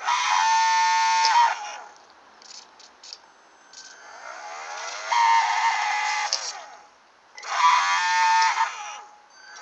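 Hair-dryer ducted fan motor, mounted in an aluminium tube, whining in three bursts of power, the middle one winding up more slowly. The aluminium tube vibrates and amplifies the noise, making it quite noisy.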